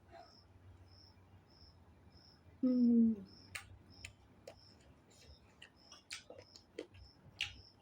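Close-up eating sounds: chewing and mouth clicks with a few sharper clicks, and a short "mm" hum falling in pitch about three seconds in. A faint high chirp repeats about every half second in the background.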